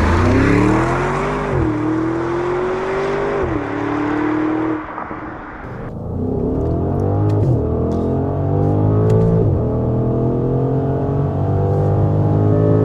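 Audi SQ8's 4.0-litre twin-turbo petrol V8 accelerating hard through the gears. The engine note climbs and drops back at each upshift of the eight-speed Tiptronic automatic, four shifts in all. It is first heard from outside the car, then from inside the cabin after about six seconds.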